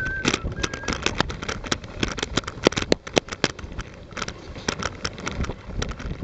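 A dog sled running over a packed snow trail: the runners scrape and rumble on the snow, with many irregular clicks and knocks from the sled and its rigging as it travels. A brief thin high squeal sounds twice in the first second.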